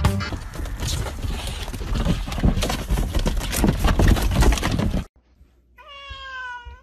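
Loud, rough rustling and clatter with irregular knocks, which cuts off suddenly after about five seconds. Near the end, a cat gives one long meow that falls slightly in pitch.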